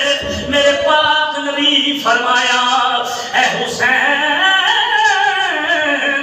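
A man's voice chanting melodically, the preacher's lines drawn out in a sung recitation style, with one long held note that rises and falls from about four seconds in.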